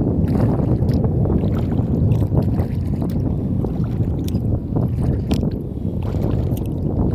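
Wind rumbling on the microphone as the kayak moves, with scattered splashes and drips of water from the paddle strokes.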